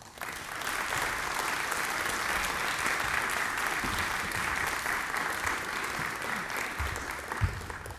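Audience applauding, swelling within the first second, holding steady, then dying away near the end.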